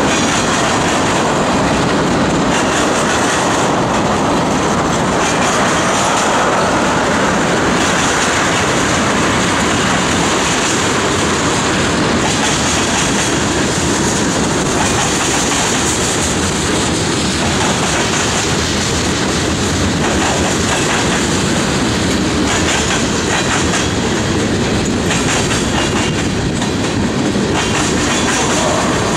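Mixed freight cars of a manifest freight train (tank cars, covered hoppers and boxcars) rolling steadily past close by. The wheels rumble on the rail, with clickety-clack as the trucks cross rail joints.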